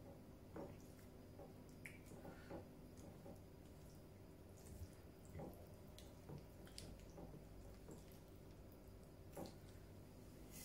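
Faint, scattered wet clicks and smacks of someone eating rice by hand: fingers squishing the rice and chewing mouth sounds, over a low steady hum.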